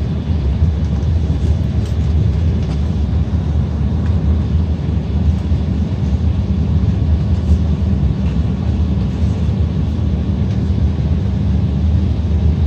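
Steady low rumble of jet engines at taxi power, heard inside the cabin of an Embraer E-Jet taxiing after landing.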